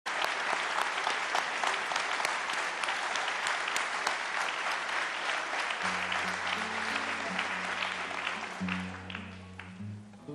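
Concert audience applauding, dying away over the last couple of seconds, as a guitar starts playing the song's introduction about six seconds in.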